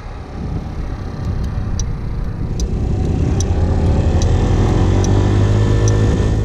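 Motor scooter engine running while being ridden, with a steady low rumble. From about halfway it speeds up, rising in pitch and loudness, then holds steady.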